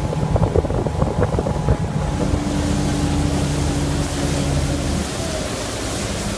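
Motorboat engine running under way, with water rushing and wind on the microphone; the engine note steadies, then drops about five seconds in as the boat slows.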